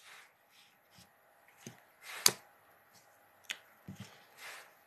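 Quiet room with a few faint clicks and soft rustles, the sharpest a single click a little over two seconds in.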